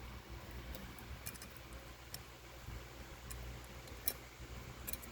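A few faint, scattered light clicks and taps of a valve spring compressor being handled on a cylinder head, over a steady low hum.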